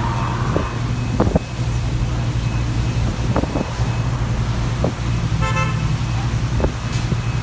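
City tour bus's engine running with a steady low drone, over a few scattered knocks and rattles. A brief vehicle horn toot sounds about five and a half seconds in.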